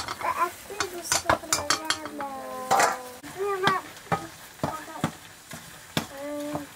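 Ladle stirring pumpkin curry in a black wok: repeated sharp clinks and scrapes against the pan over a low sizzle, with a few short voice-like calls in the background.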